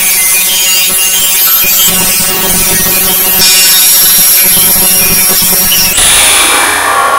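Loud, harsh, rasping audio from a voice-changer app's 'Mini Robot 2' effect: a recording played back through the robot filter, with steady humming tones over noisy hiss. The sound changes abruptly about six seconds in.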